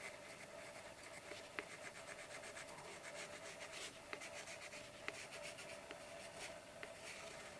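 Faint scratching of a pink watercolour coloured pencil shading back and forth over paper, in many short strokes, with a faint steady hum underneath.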